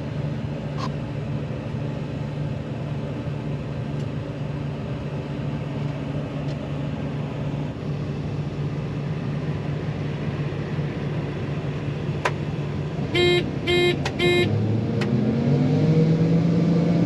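John Deere 9500 combine's engine running steadily, heard from inside the cab. Three short beeps sound about two-thirds of the way through, and then the engine revs up to a higher steady speed.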